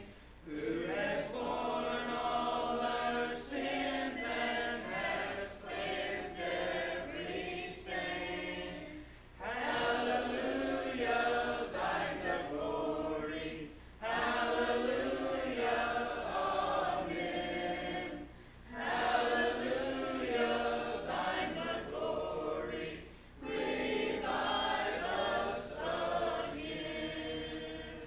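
Congregation singing a hymn a cappella in several voices. The sung lines run about four to five seconds each, with short breaks between them.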